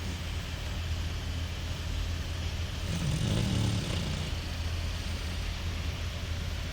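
A sleeping pet snoring, with one snore about three seconds in over a steady low hum.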